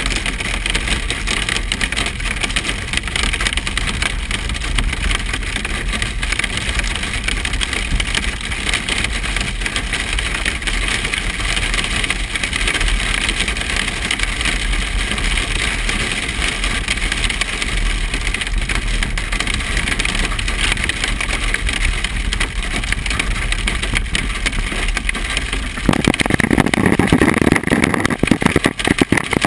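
Rain and hail pelting a vehicle, heard from inside the cab as a dense, steady patter over the vehicle's engine and road noise. About 26 seconds in it becomes louder and fuller.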